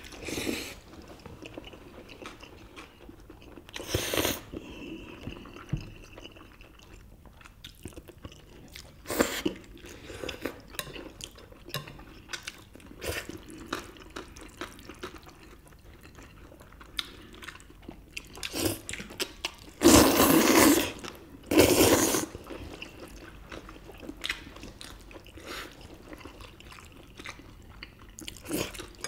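People chewing and biting into steamed dumplings and spicy noodles close to the microphone: scattered small smacks and crunches, with a few short, louder noisy bursts, the loudest about twenty and twenty-two seconds in.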